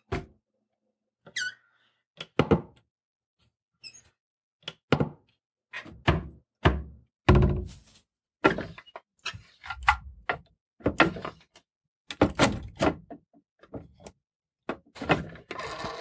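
Wooden cottage doors being worked: a series of hollow wooden thunks and knocks of the doors and latches, few at first and then coming closer together. A short squeak about 1.5 s in and a longer creak near the end.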